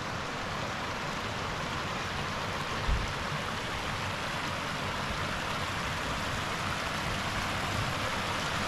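Shallow river water rushing across a submerged concrete ford and spilling off its edge onto the rocks of the stream, a steady rushing splash that grows slightly louder near the end. A brief low thump about three seconds in.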